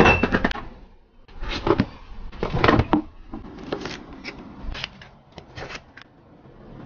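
Chef's knife cutting asparagus and carrots on a wooden cutting board: a few quick clustered cuts, then a run of single sharp chops.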